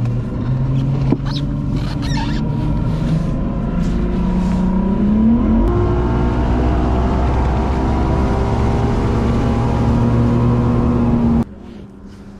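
Outboard motor on a bass boat running under throttle: its pitch rises about four to five seconds in as the boat speeds up, then holds steady at running speed over a rush of wind and water. The sound cuts off suddenly near the end.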